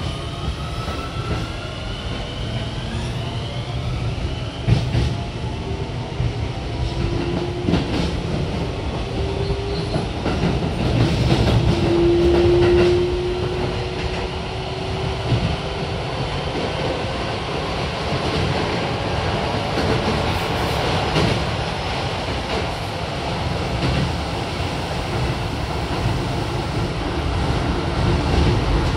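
Keio 7000 series electric train pulling away and gathering speed, heard inside the car. The Hitachi IGBT VVVF inverter's whine climbs in pitch over the first few seconds, then a motor tone rises slowly as speed builds. Under it runs a steady wheel rumble with occasional clacks from the rails.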